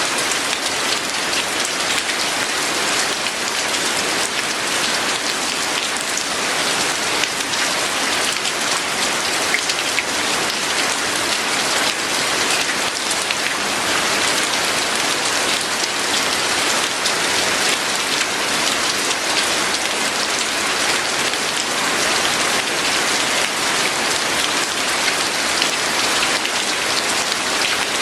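Steady rain falling, an even hiss with fine drop ticks throughout.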